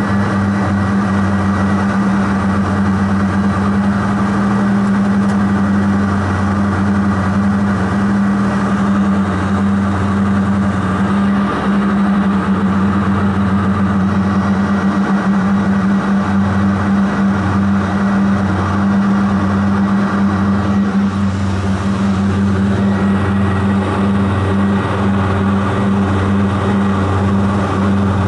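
Light aircraft's engine and propeller droning steadily in level flight, heard from inside the cabin: a deep, even hum with a strong low tone and rushing noise above it.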